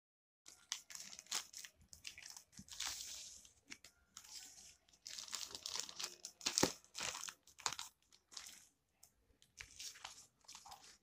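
Plastic courier mailer and foil pouch rustling and crinkling as they are handled and the contents pulled out. It comes in irregular bursts with short pauses, starting about half a second in.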